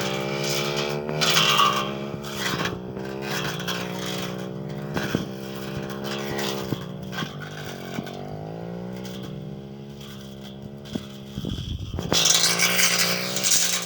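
Brush cutter engine running, its speed rising and falling as it cuts through the undergrowth, with a few light clicks. A loud rustling noise comes in near the end.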